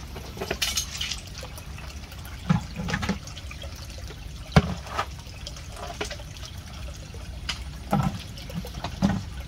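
Black plastic lids being fitted and pressed down onto blue plastic drums of liquid, with several knocks. The loudest comes about halfway through. A plastic bucket is set down on one lid.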